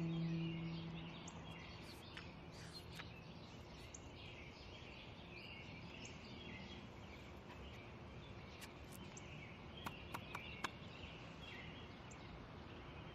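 Garden ambience of birds chirping steadily in the background. A held low musical tone fades out in the first second or two, and a quick cluster of four sharp clicks comes about ten seconds in.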